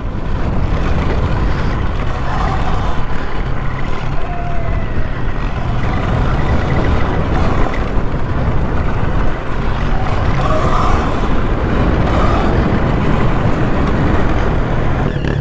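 Steady wind buffeting and rumble on the microphone as an electric dirt bike rides fast over bumpy grass, with faint whines that rise and fall.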